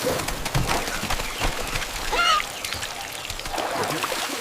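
Water pattering and splashing in many small drops, like a sprinkle or pour, with a brief chirp-like call about two seconds in.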